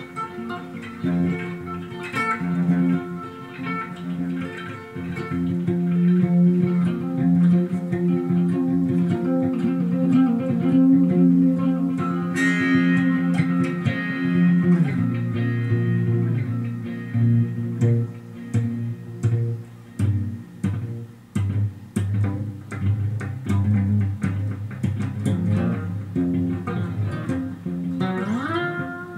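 Guitar played solo with sustained, ringing notes, moving to lower notes about halfway through. Near the end, notes slide up in pitch.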